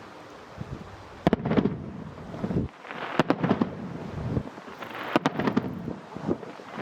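Fireworks shells bursting: three sharp bangs about two seconds apart, each followed by a rush of crackling noise that dies away.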